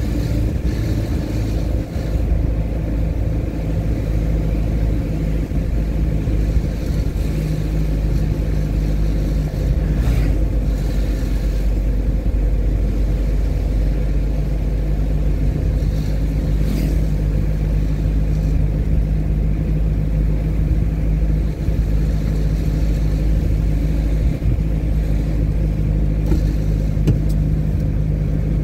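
Steady engine hum and road rumble from a vehicle driving along a paved road, the engine note a little stronger from about halfway through, with a couple of brief knocks.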